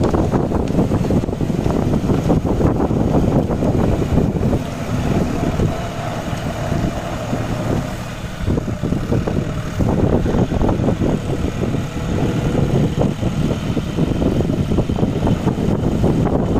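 John Deere tractor's diesel engine running under load, with the tractor-driven Shaktimaan rotavator churning wet mud and water in a flooded paddy field. The sound eases for a few seconds in the middle as the tractor turns, then comes back up.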